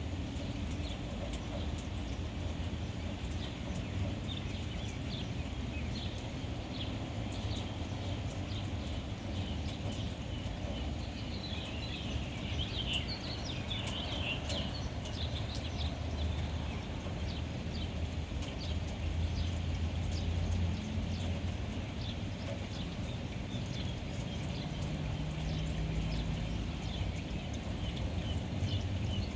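Small birds chirping over and over, with a busier flurry of chirps about halfway through, over a steady low background rumble.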